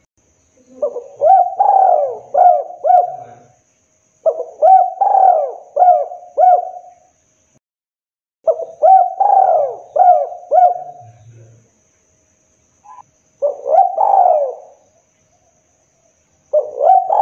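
Spotted dove cooing in repeated phrases, each a quick run of several rounded notes lasting two to three seconds. Four full phrases, a few seconds apart, with a fifth starting near the end.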